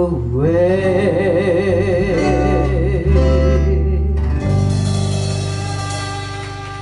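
Live band playing a country ballad: a woman sings a long held note with a wide vibrato over acoustic guitar and upright bass. About four seconds in her voice stops and the band holds a chord that slowly fades.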